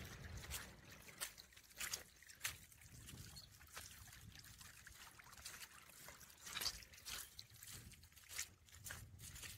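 Rubber muck boots squelching through wet mud and slush: irregular wet footsteps, faint.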